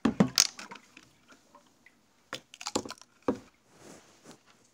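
Sharp knocks and clicks of a wooden stirring stick against the sides of a plastic reservoir tote while nutrient solution is stirred: a cluster at the start, then three single knocks around the middle.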